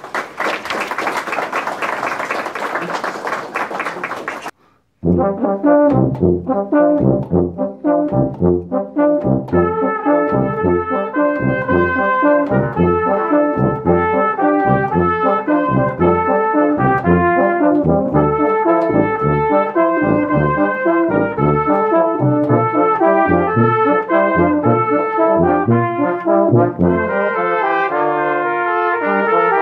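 Audience applause for the first four seconds or so, stopping abruptly. Then a brass ensemble starts a piece: held chords over low bass notes pulsing on a steady beat a little faster than once a second.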